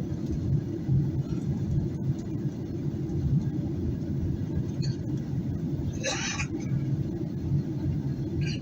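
Steady low drone of cabin noise inside a Boeing 737-800 in flight, from the engines and the airflow. A short rustle comes about six seconds in.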